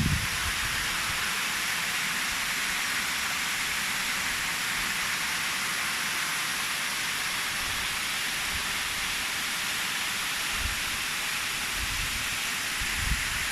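Waterfall pouring and splashing, a steady unbroken hiss of falling water. A few brief low rumbles come near the end.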